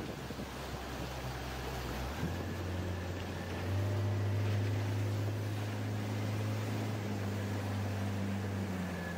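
A motorboat engine droning steadily over wind and rushing water, growing louder a few seconds in.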